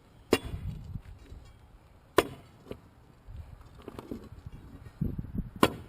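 Saw-cut chunks of concrete sidewalk being pried loose and lifted out with a pry bar: a few sharp knocks of concrete and steel, with low scraping and grinding between them.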